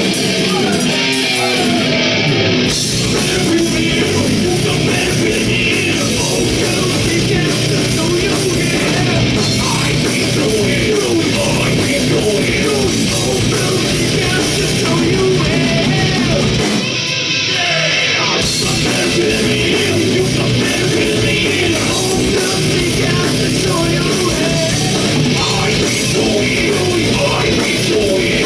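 Heavy rock band playing loud, with electric guitar, drum kit and singing. The low end drops out briefly about seventeen seconds in, then the full band comes back.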